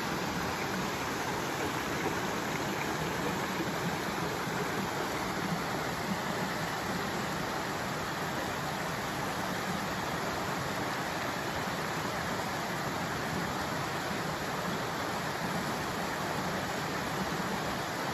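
Shallow rocky creek running over stones and small cascades: a steady rush of flowing water.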